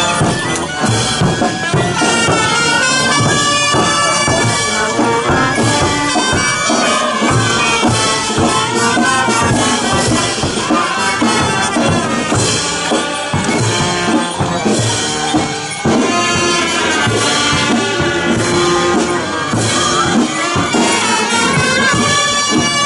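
Violins playing a lively Andean dance tune in sustained, gliding melodic lines, with a steady percussion beat beneath.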